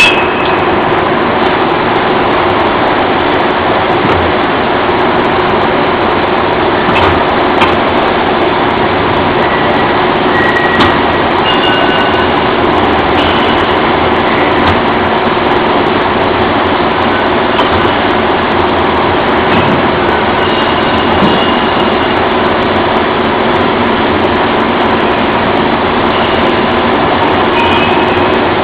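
Loud, steady machinery noise from a camshaft induction hardening machine at work: a dense, even noise with a constant hum underneath, a few clicks and several brief high whistles.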